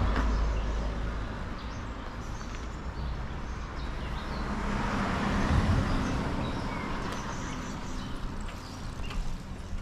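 Street traffic going by: a vehicle's rumble fades over the first second or so, then another vehicle's engine and tyre noise swells to a peak just past the middle and fades again. Small birds chirp now and then.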